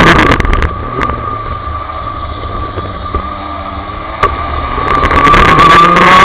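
Rotax Max DD2 125 cc two-stroke kart engine heard from an onboard camera at racing speed. About a second in the engine note drops and quietens through a corner, with a single sharp click a little later. It comes back up loud near the end as the kart accelerates out onto the straight.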